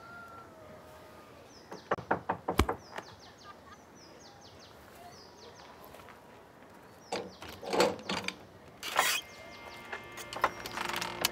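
Knocking on a wooden door: a quick run of sharp knocks about two seconds in, then more knocks and clatter later as the door is unbolted and pulled open, with small birds chirping faintly between.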